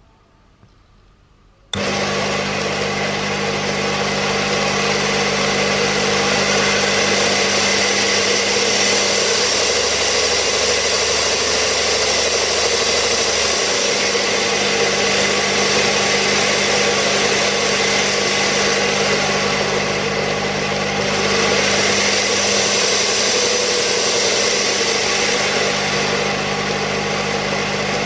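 Restored electric grinding machine switched on about two seconds in and running steadily with a motor hum and a high whirr, then switched off at the end and quickly running down.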